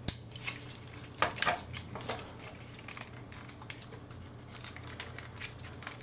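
Hard plastic parts of a Generation Toy GT-2 Tyrant transforming robot figure clicking and knocking as they are handled and fitted together. A sharp click at the start, a cluster of clicks between one and two seconds in, then fainter scattered clicks.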